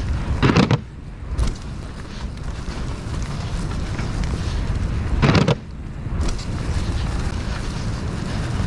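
Mountain bike rolling fast downhill over grass: tyre rumble and wind rushing over the camera microphone, with a short louder burst about half a second in and again a little past five seconds.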